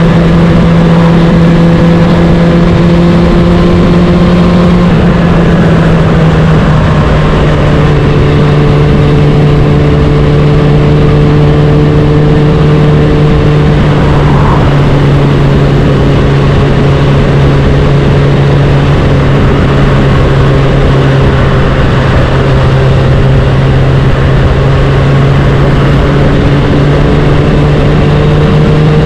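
Suzuki Bandit 650's inline-four engine running at steady cruising revs through a Black Widow aftermarket exhaust, heard from the rider's seat. The pitch steps down slightly about five to seven seconds in, holds steady, and rises a little near the end.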